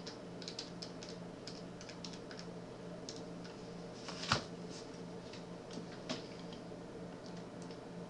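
Computer keyboard keys tapped in an irregular run of faint clicks, with one louder click about four seconds in, over a low steady hum.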